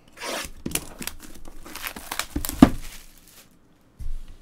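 Plastic shrink wrap on a trading-card box being slit with a utility knife, then torn and crinkled off, with a sharp crackle about two and a half seconds in. A soft thump near the end.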